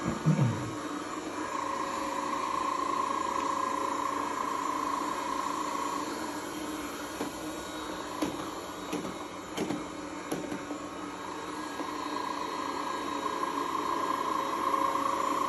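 Robot vacuum cleaner running, a steady whirring hum that grows louder and fainter as it moves around the room, with a few light knocks about halfway through.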